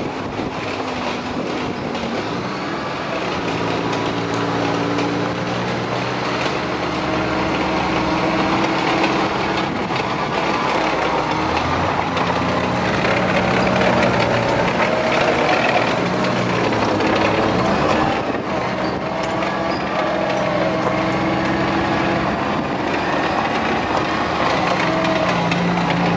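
Armoured vehicle driving on a dirt track, its engine running steadily under load and shifting in pitch as it moves, with clattering running gear and road noise.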